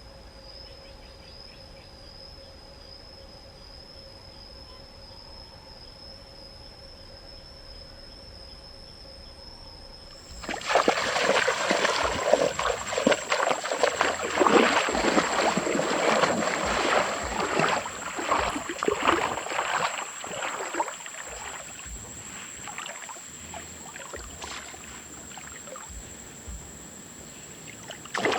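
A faint, steady, high insect drone, then, about ten seconds in, an abrupt change to loud, irregular splashing and sloshing of water that slowly dies down.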